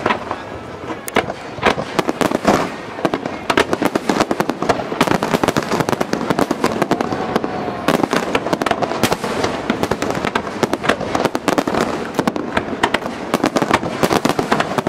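Aerial fireworks display: a dense, continuous barrage of shell bursts, many bangs a second, with crackling between them.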